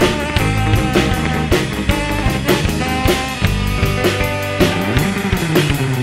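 Rock music with drum kit and guitar, playing with a steady beat.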